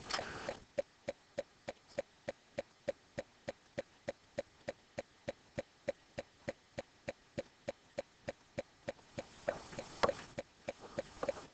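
Steady, even ticking, about four ticks a second, with a brief soft rustle about ten seconds in.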